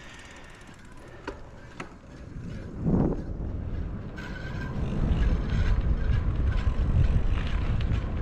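Wind rushing over the microphone as the camera moves down the road, growing louder from about halfway through as it gathers speed. A few light clicks come early on.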